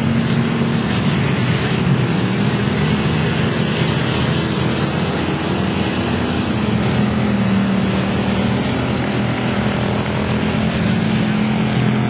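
Several dirt-track race cars' engines running as the pack circles the oval: a steady, loud drone whose pitch wavers slightly as the cars go through the turns.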